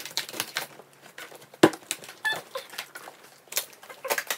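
A parcel being handled and opened: irregular knocks, clicks and rustles, the sharpest knock about one and a half seconds in.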